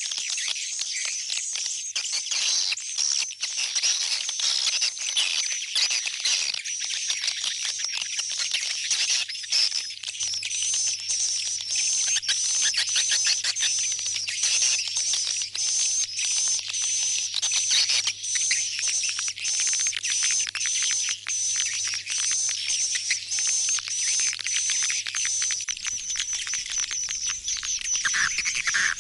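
Swiftlets twittering continuously: a dense stream of high, rapid clicking chirps, with a sharp chirp repeating about twice a second through the middle. This is the swiftlet call used as a homing sound to draw the birds back into a swiftlet nest house.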